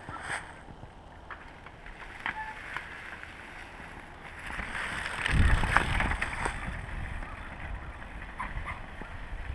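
Mountain bike rolling over a carpet of dry fallen leaves, its tyres rustling and crunching them as it comes close and passes. The sound swells about five seconds in, with a low rumble as the bike goes by, then fades as it heads away downhill.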